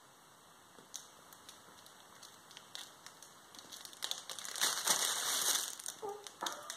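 Crinkly rustling of a fabric cat tunnel as a cat scrambles about inside it. Scattered crackles build to a dense, loud rustle about four seconds in, which dies back to a few crackles near the end.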